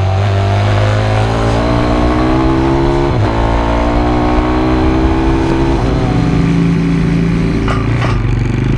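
Daytona 150cc pitbike's single-cylinder four-stroke engine accelerating through the gears. Its note rises, drops sharply with an upshift about three seconds in, climbs again, then falls to a lower steady note near six seconds as the throttle eases.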